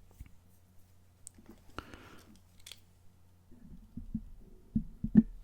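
Close-miked mouth sounds: scattered soft wet clicks and smacks, then a few louder low pops near the end, the loudest about five seconds in.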